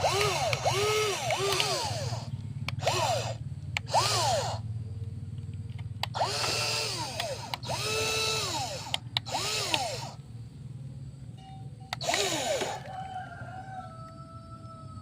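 Small electric motors of a WL16800 RC model excavator whining in a string of short bursts as the arm and bucket move, each rising and then falling in pitch, over a steady low hum.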